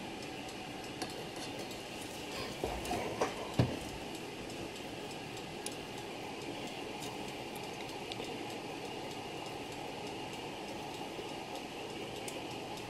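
Light clicks and knocks of a brass clock movement being handled, with tweezers working between its plates, and a short cluster of louder knocks about three seconds in. A steady background hiss runs underneath.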